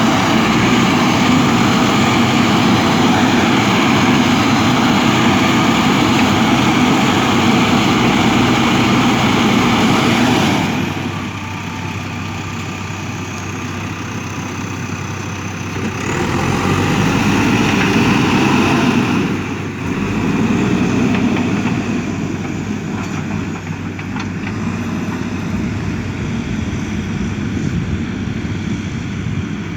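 Backhoe loader's diesel engine running steadily as it digs. It drops to a lower level about a third of the way in, then swells again twice before settling, as the load on the machine changes.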